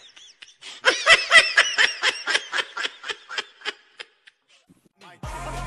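A person laughing in a quick run of short 'ha-ha' pulses, about four a second, loudest at the start and fading out over about three seconds. Music with a steady bass comes in just before the end.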